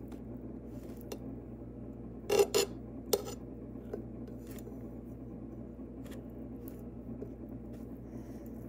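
Table knife clinking and tapping against a plate while buttering bread: a few sharp clicks, the loudest about two and a half and three seconds in, then fainter taps, over a steady low hum.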